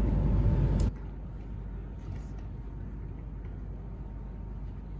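Steady low hum and hiss of room tone, dropping suddenly to a fainter level about a second in.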